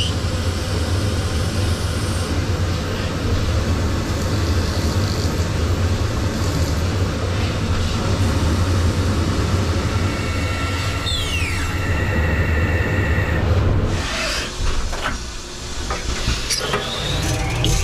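Tornos SwissDeco 36 Swiss-type CNC lathe running, a steady low drone with metal-cutting noise as it drills and turns a small bar-stock part. A brief falling whine and a couple of held tones come about eleven seconds in. The drone drops away about fourteen seconds in.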